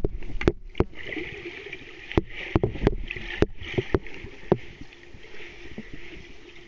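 Underwater ambience recorded by a camera submerged in a swimming pool: a steady hiss with a faint low hum, and scattered sharp clicks and knocks, the loudest in the first second as the camera is handled and set down.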